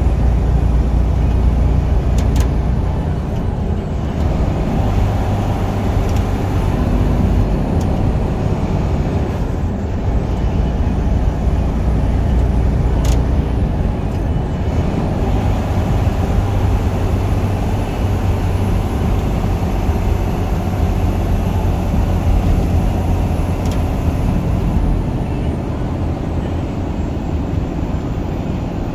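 Steady engine and road noise inside a truck cab cruising at highway speed, a low rumble under a constant hiss of tyres and wind.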